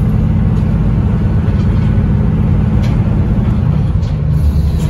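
A boat's diesel engine running with a steady low drone, its note shifting slightly about four seconds in.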